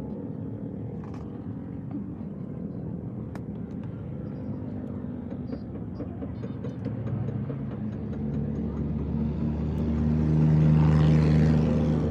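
A motor vehicle's engine running and drawing closer, growing louder to a peak near the end as it passes, with scattered light clicks over it.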